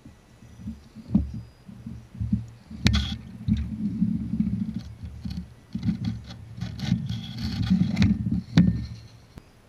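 Vaterra Ascender RC crawler's electric motor and gear drivetrain running in stop-start bursts as it climbs over rocks, with its tires and chassis scraping and knocking against the stones. A sharp knock comes about three seconds in and another near the end.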